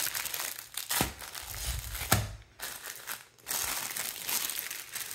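Clear plastic bags of diamond-painting drills crinkling and rustling as they are handled and laid down on the kit's paper-backed canvas, with a couple of soft thumps.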